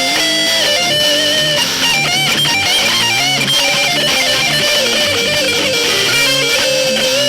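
Instrumental metal played on distorted electric guitars, without drums: a sustained lead melody with pitch bends and vibrato over lower chugging rhythm guitar notes, loud and steady.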